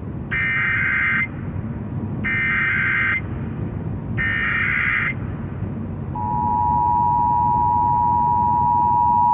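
Emergency Alert System test over a car's AM radio: three one-second bursts of buzzy digital header data, followed about six seconds in by the two-tone attention signal, a steady two-pitch tone that holds on. Low road rumble from the moving car runs underneath.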